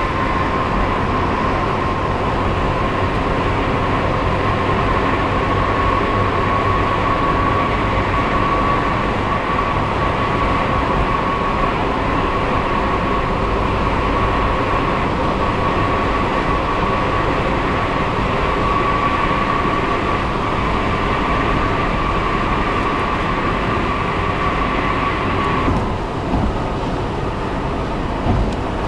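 Steady road and engine noise of a car driving at highway speed through a tunnel, heard from inside the cabin, with a steady high-pitched hum. Near the end the hum stops and the noise becomes duller as the car leaves the tunnel.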